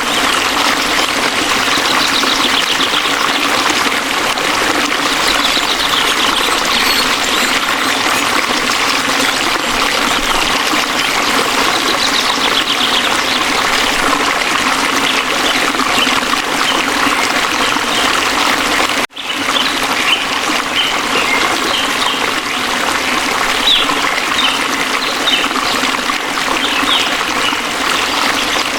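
Waterfall rushing steadily, with small birds chirping faintly over it, more often in the later part. The water sound cuts out for a split second about two-thirds of the way through.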